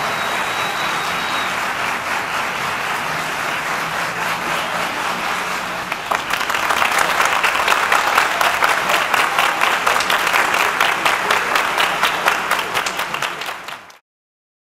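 Theatre audience applauding, growing louder about six seconds in with dense, close-set claps, then cutting off abruptly near the end.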